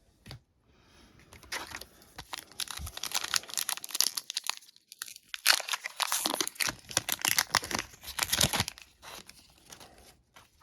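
Wrapper of a trading card pack being torn open and crinkled: two stretches of crackly rustling with a brief pause about halfway.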